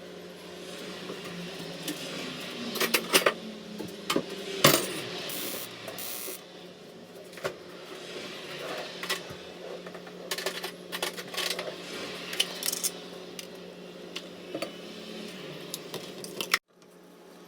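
Metal cooking utensil clinking and scraping against a pan in irregular strokes, as when stir-frying rice, over a steady low hum. The sound cuts off abruptly near the end.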